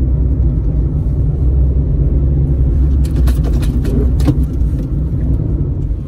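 A small city car's engine idling steadily, heard from inside the cabin, with a few light clicks and knocks about halfway through as the loose gear lever is moved around.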